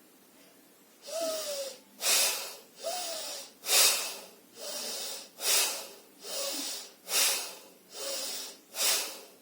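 A woman doing bhastrika (bellows) breathing at medium speed: forceful breaths in and out through the nose, a louder and a softer breath alternating, about one full breath every 1.7 seconds, starting about a second in.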